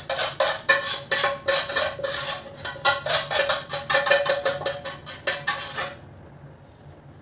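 Metal spoon clinking and scraping against a frying pan and a steel plate in a quick run of strokes, three or four a second, as sticky peanut-jaggery chikki mixture is scraped out of the pan and spread on the plate; the strokes stop about six seconds in.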